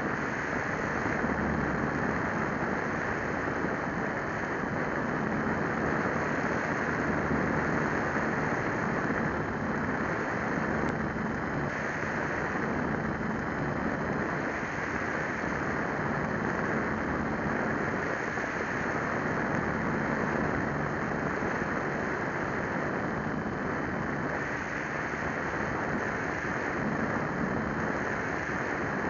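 Steady whir of a small RC plane's motor and propeller in flight, mixed with wind rushing over the onboard camera's microphone, swelling and easing slightly in level.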